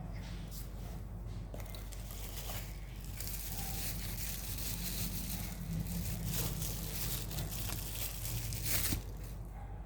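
Packaging being crinkled and torn open by hand, a rough rustling that grows busier after about three seconds, with a louder crinkle near the end.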